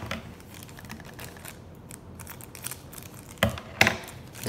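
Small plastic doll accessories and their packaging handled on a wooden tabletop: light clicks and rustles, with two sharper knocks close together near the end as pieces are set down.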